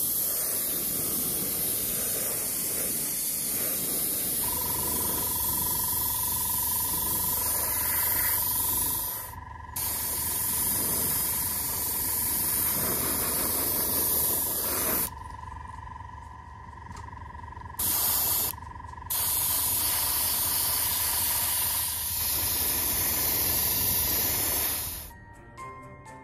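Airbrush spraying Tamiya X-22 gloss clear coat at about 20 psi: a steady hiss of air and paint in three long bursts and one short one, with brief pauses between them. From a few seconds in, a steady whine and low hum run underneath.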